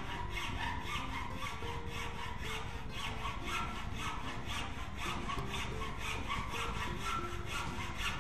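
A fine-toothed hand saw cutting through a hardwood floorboard in steady, even back-and-forth strokes.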